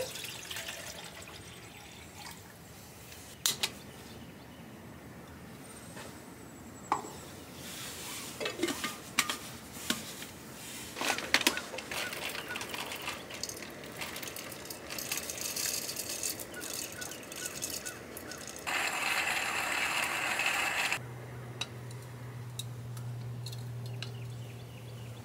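Camp coffee-making sounds: scattered clicks and knocks of gear being handled and water being poured, with a couple of seconds of rushing noise near the end followed by a steady low hum.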